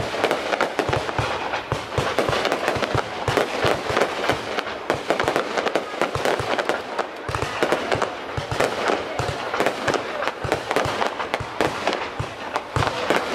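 Fireworks going off: a dense, unbroken run of bangs and crackles.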